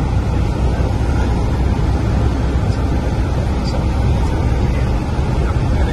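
Single-engine light airplane's engine and propeller droning steadily, heard from inside the cockpit.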